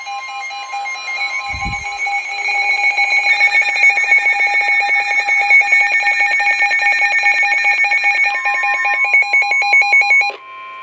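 Broadcast emergency alert tones: several steady electronic alarm tones with a fast, even pulsing, which cut off suddenly about ten seconds in. A brief low thump comes near two seconds in.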